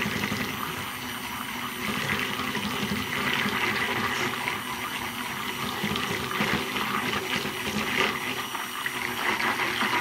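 Handheld stick blender running steadily in a small pitcher of cold process soap batter, its motor whirring as it churns and mixes the coloured batter.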